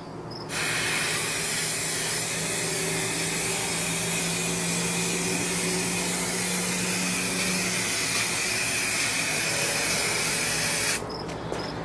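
Aerosol can of Rust-Oleum LeakSeal spraying liquid rubber sealant in one long, steady hiss. It starts about half a second in and cuts off near the end.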